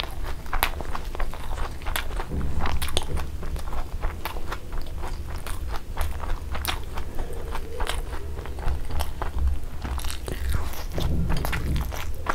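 Close-miked chewing of fried eggs with crisp browned edges: many irregular sharp crunches and mouth clicks.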